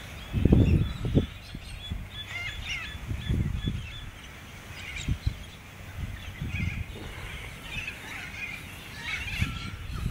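Gusts of dust-storm wind buffeting the microphone in low rumbles, the strongest about half a second in, while birds chirp and call in scattered short notes.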